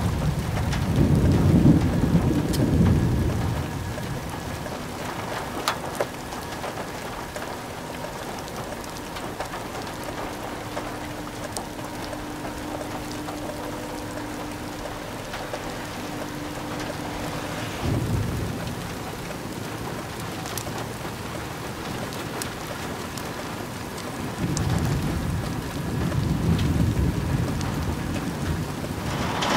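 Rain falling steadily, with scattered sharp drop ticks, under a severe thunderstorm. Rolling thunder comes three times: a long rumble in the first few seconds, a short one about two-thirds of the way through, and another long rumble near the end.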